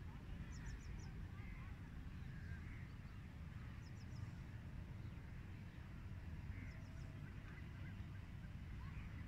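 Faint outdoor ambience: a steady low rumble with a few distant bird calls, including quick high trills of three or four notes, heard three times.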